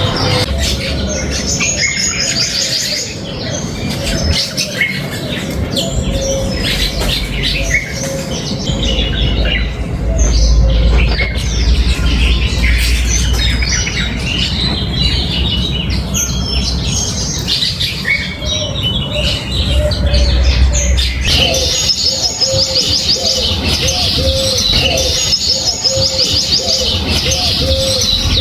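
A flock of small backyard birds chirping busily, many short high calls overlapping without pause. In the last few seconds a lower note repeats evenly beneath the chirping, and a low rumble swells twice.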